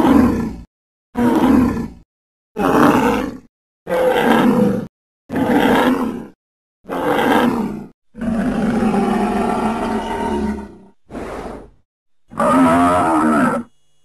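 Sound-effect calls for a woolly rhinoceros, an extinct animal whose voice is reconstructed. Six short, harsh animal calls come about every second and a half, then one long call of about three seconds, a brief call, and a last call with wavering pitch near the end.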